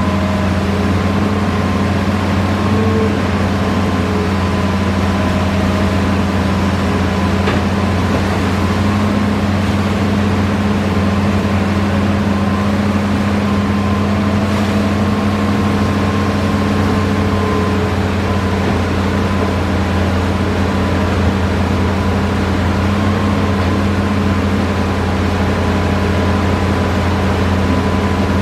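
Diesel engine of a Hitachi Zaxis-5G excavator running steadily at working speed, a constant deep drone with a faint high whine over it.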